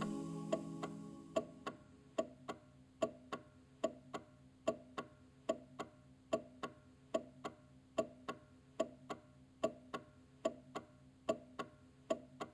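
A clock ticking in a steady tick-tock, a pair of ticks roughly every 0.8 seconds, as the last held notes of the music die away in the first second or so.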